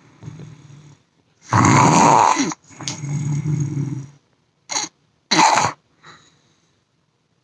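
A man snoring heavily: a loud, harsh snore on the in-breath, then a lower buzzing snore on the out-breath, then two short snorts about a second apart. After that his breathing stops for a while, a pause that has the listener calling on him to breathe.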